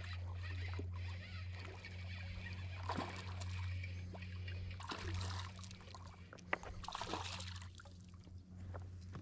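Water splashing and sloshing at several moments as a hooked crappie is fought in and landed, with a sharp click a little after the middle. A steady low hum runs underneath.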